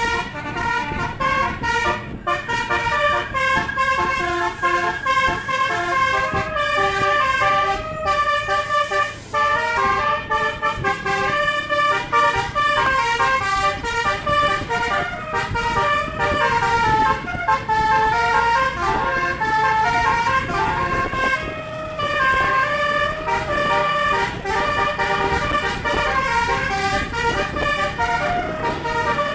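Indonesian bus 'telolet' horn: a multi-trumpet musical air horn playing a continuous melody of quickly changing notes, over a low rumble from the bus.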